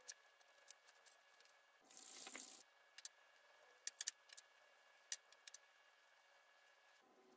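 Faint handling of small machined steel parts in a cloth rag: a short hiss about two seconds in, then a few small sharp clicks, three of them in quick succession near the middle.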